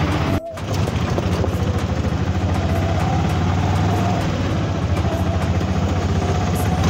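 Auto-rickshaw's small engine running steadily as it drives along, heard from inside the open passenger cabin, with a brief break in the sound about half a second in.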